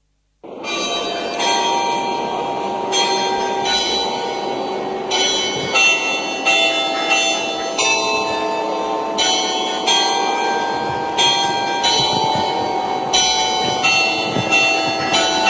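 Bells ringing: an uneven run of strikes at several different pitches, each ringing on into the next.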